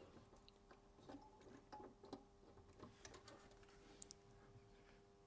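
Near silence with faint, scattered light clicks and taps from multimeter probes being placed on a synthesizer circuit board to measure the supply rail's resistance. A faint steady hum runs underneath.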